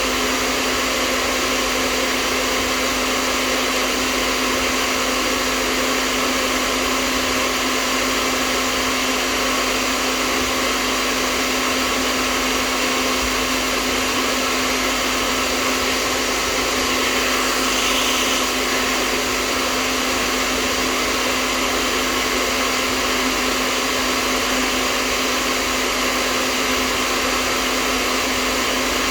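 Hair dryer running steadily: a continuous airy rush of blown air over a steady low motor hum, swelling slightly for a moment about two-thirds of the way through.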